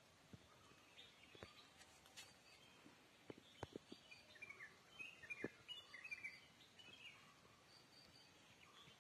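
Faint birdsong: short chirps and quick falling notes, busiest between about four and seven seconds in, over a quiet outdoor background with a few faint clicks.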